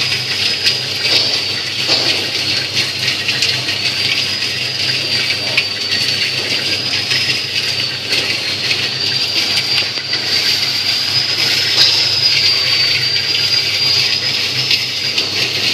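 Peanuts tumbling and rattling in a rotating stainless-steel sugar-coating pan. Under the rattle there is a steady hiss, a thin high whistle that wavers slowly in pitch, and a low machine hum.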